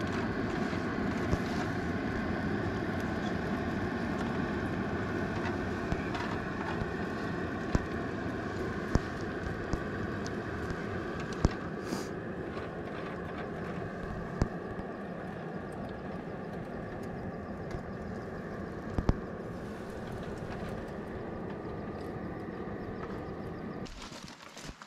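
A motor running steadily, a hum of several even tones over a noisy wash that fades slowly, with a few sharp knocks here and there. It cuts off abruptly near the end.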